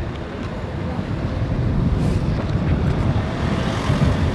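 Wind buffeting the microphone, a low fluttering rumble, with light crinkling from a paper envelope being opened and a photo drawn out of it.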